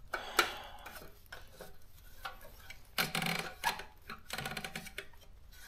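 Clicks, clacks and rubbing from a Daro 20 manual typewriter's mechanism as it is handled and wiped during cleaning. The louder clacks come about three seconds in and again about a second later.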